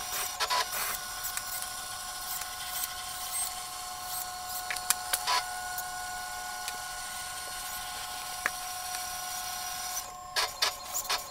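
Sped-up workshop sounds of a wooden model being assembled: quick clicks and taps of wooden parts and hand tools over a steady high hum, which stops near the end, after which the clicks come faster.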